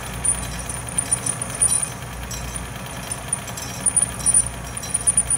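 Atlas metal lathe running with an insert boring bar cutting inside a deep bore in hex stock. The machine noise is steady, with a thin high whine that comes and goes and a few sharp clicks, bunched near the end.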